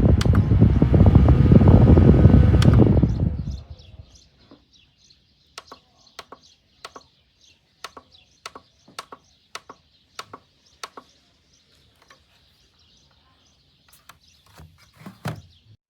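Battery-powered camping fan running with its air blowing on the microphone, then switched off and spinning down about three and a half seconds in. A string of light clicks follows, roughly two a second, and there are a few soft knocks near the end.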